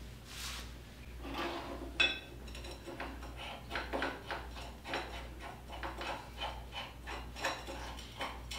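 Hand wrench working a fitting on a DoAll 14-inch surface grinder: a series of short metal clicks and clinks at an uneven pace, with one sharper click about two seconds in.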